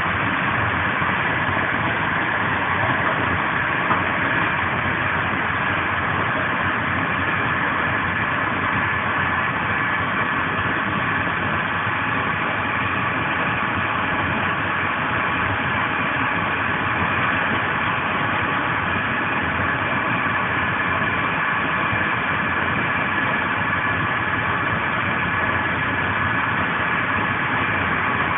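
Steady running noise of a Portuguese Intercidades passenger train travelling at speed, heard from on board a Corail coach: a constant rumble and hiss of wheels on the rails, with one light knock about four seconds in.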